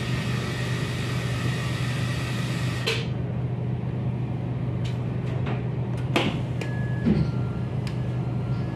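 Inside a Cercanías commuter train as it comes into a station and stops: a steady low hum from the train, with a high hiss that cuts off about three seconds in. A few sharp clicks and knocks follow, and a short two-note falling beep sounds near the end.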